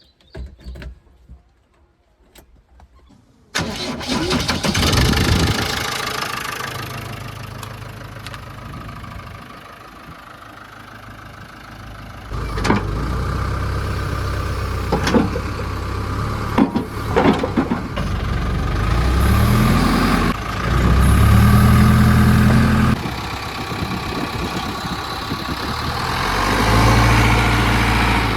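Diesel engine of the backhoe loader or tractor starting and running at idle, with a few clanks, then revved up and down twice before settling again.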